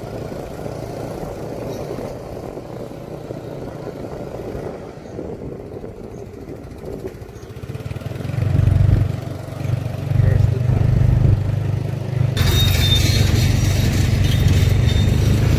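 Motorcycle riding along, heard from the saddle: steady engine and road noise, then loud, uneven wind buffeting on the microphone from about eight seconds in. A harsh hiss joins near the end as the tyres run onto an unpaved dirt road.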